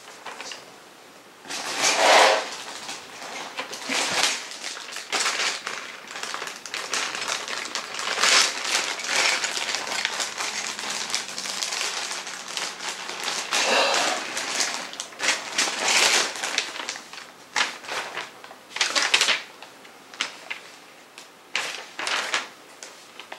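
Packaging rustling and crinkling in irregular bursts, with small clicks and knocks, as the padded parts of a flat-pack shelving unit are unwrapped and handled.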